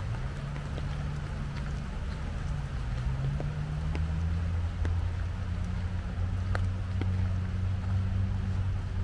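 A steady low engine-like hum that shifts in pitch about three seconds in and grows stronger from about four seconds, with scattered light ticks of raindrops and drips.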